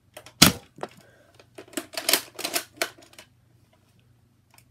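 Plastic clicks and rattles from handling an Air Warriors Snipe foam-dart blaster: one sharp click about half a second in, then a run of quicker clicks around two to three seconds in.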